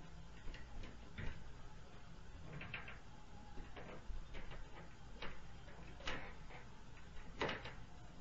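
Irregular sharp knocks and clicks, about a dozen spread unevenly, the strongest two near the end, over a steady low hum. The recorder takes them for noise from the upstairs neighbours.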